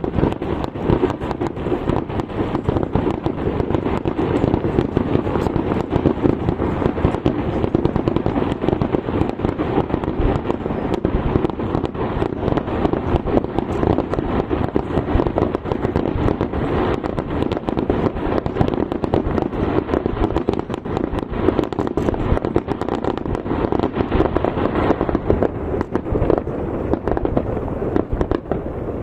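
Dense, continuous barrage of aerial firework shells bursting over the sea, bangs and crackle overlapping with no pause between them. The sharp crackle thins out a little in the last few seconds while the booming goes on.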